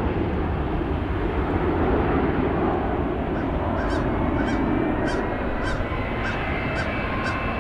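Airbus A320-232 climbing away after takeoff, its IAE V2500 turbofans giving a steady jet rumble. From about three seconds in, a bird calls over it in short repeated calls, about two a second.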